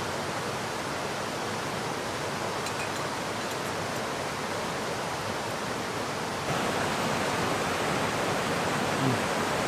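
Steady rushing of a fast-flowing river over rocks, stepping up louder about two-thirds of the way through. A brief low sound comes near the end.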